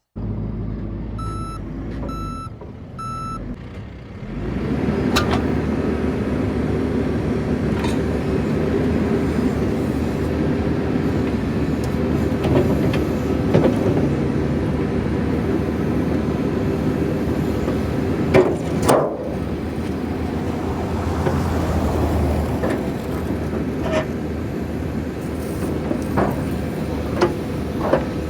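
John Deere 310 backhoe's reversing alarm gives three short beeps, then its diesel engine runs hard under load with scattered metallic clanks and knocks as it works, the loudest about two-thirds of the way through.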